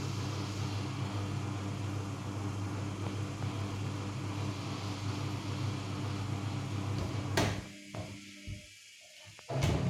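Samsung P1271 washing machine running with a steady low hum, which stops with a click about seven and a half seconds in, leaving a brief quiet before another sharp sound at the very end.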